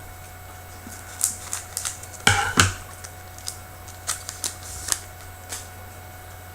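Hockey trading cards being handled and slid off one another by hand: scattered sharp clicks and short rustles, the loudest about two and a half seconds in, over a steady low hum.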